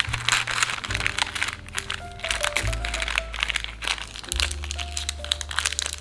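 Baking paper crinkling and crackling as hands wrap it around a piece of nougat and twist the ends closed, over background music with sustained notes and a bass line.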